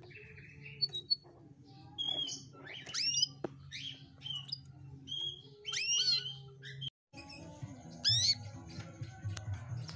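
Domestic canary calling: separate short chirps and quick up-and-down whistled calls about once a second, the calls of a female canary used as a lure to set silent males singing. A low steady hum runs underneath, and the audio drops out briefly about seven seconds in.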